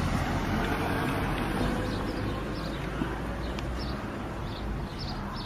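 A motor vehicle's engine running nearby: a low, steady rumble that eases off after about four seconds. Short, faint high chirps sound over it in the second half.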